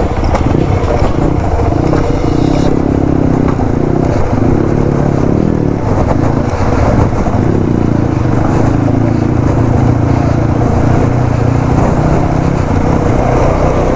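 Motorcycle engine running steadily while riding, its pitch shifting a little with the throttle.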